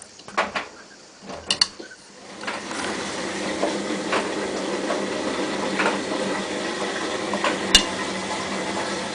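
Hotpoint-Ariston AVXXF137 washing machine at work: a few sharp clicks and knocks, then about two seconds in a steady rushing sound starts and carries on, with an occasional click.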